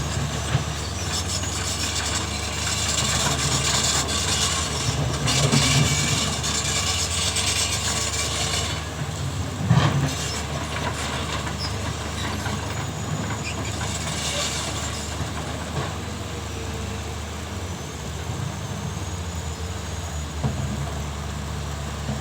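Diesel engines of excavators working earth, running steadily, with a stretch of noisy scraping and hissing for several seconds and a single sharp knock about ten seconds in.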